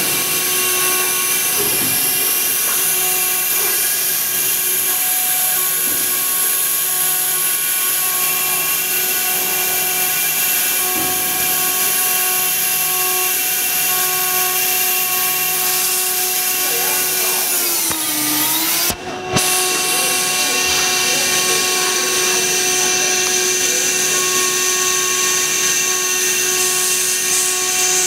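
CNC router spindle running at high speed, a steady whine with a high hiss. About eighteen seconds in its pitch sags briefly, then it cuts out for a moment and comes back.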